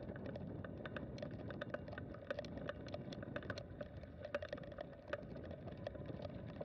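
Bicycle rolling along a leaf-littered dirt trail: a steady low rumble with frequent irregular clicks and rattles.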